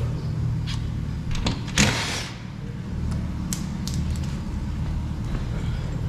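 Cordless power drill with a 13 mm socket running a door-mirror mounting nut off, with clicks of the tool being handled, a short loud burst about two seconds in, and steady running in the second half.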